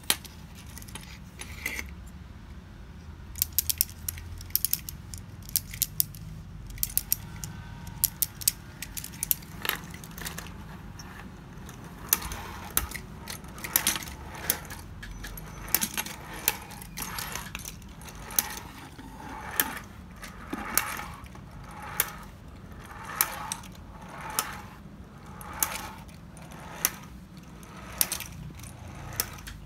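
1950s Japanese tin wind-up fighting-chickens toy, its clockwork mechanism running and the tin roosters clattering. Tinny metallic clicks come irregularly at first, then settle after about twelve seconds into a steady rhythm of about one and a half clicks a second.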